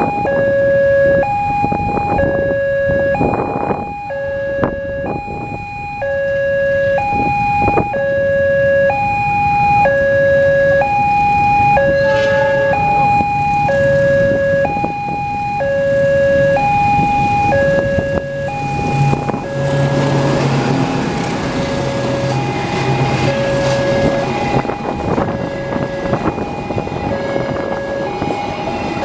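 Railway level-crossing warning alarm sounding, an electronic two-tone chime alternating a lower and a higher note over and over. About two-thirds in, a passenger train arrives: a low engine hum and rising rail and wheel noise as the coaches roll past the crossing.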